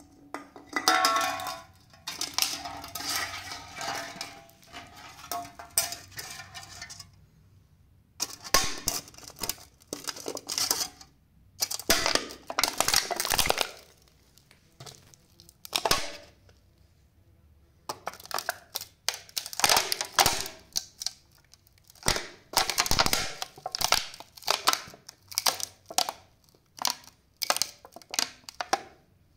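A 500 ml aluminium energy-drink can crunching and crackling as a platform boot heel presses down on it, in repeated bouts of sharp crackles with short pauses between as the can folds flat.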